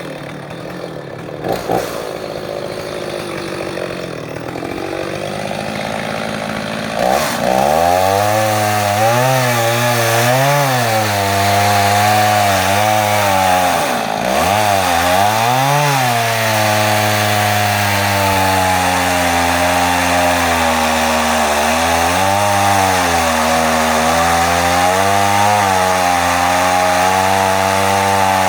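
Chainsaw cutting into a tree trunk, its engine pitch wavering up and down under load. It is quieter for the first several seconds and runs loud from about seven seconds in, with a brief drop in revs near the middle.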